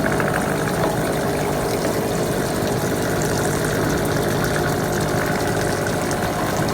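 A machine tool running with a steady, even hum.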